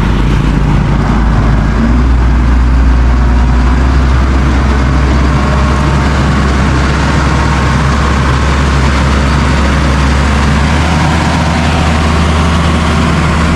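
Bulldozer's diesel engine running steadily with a deep, constant drone and a broad mechanical noise above it.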